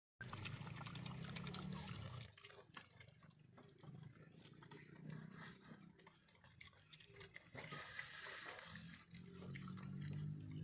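Low calls from a farm animal, heard over the first two seconds, briefly around five seconds in, and again from about nine seconds on, with a short hiss of noise near eight seconds.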